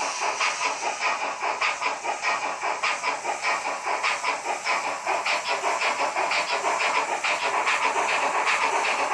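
Steam-exhaust chuffing of a BR 44 locomotive sound, played through a model locomotive's sound-decoder speaker as it pulls away: a quick, even beat of hissy chuffs, about four a second.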